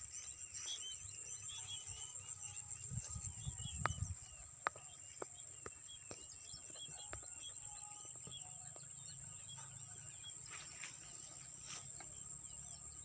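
A flock of many small birds chirping continuously over a steady high-pitched insect hum. About three seconds in there is a brief low rumble, followed by a few sharp clicks.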